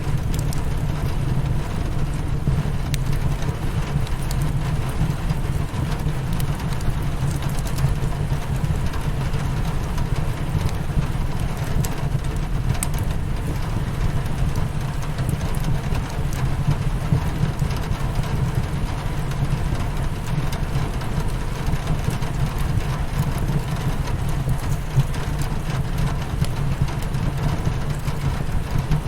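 Rain on a window mixed with a crackling fireplace: a steady low rumble under an even hiss, with scattered sharp crackles.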